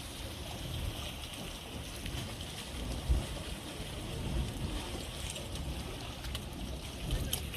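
Hot spring roaring steadily, with wind rumbling unevenly on the microphone.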